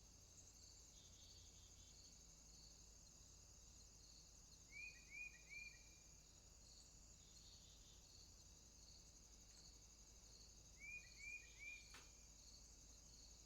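Warm-weather outdoor ambience, faint: a steady, high chorus of insects with a slower pulsing chirp beneath it. A bird gives three quick chirps twice, about five and eleven seconds in, and there is a single faint click near the end.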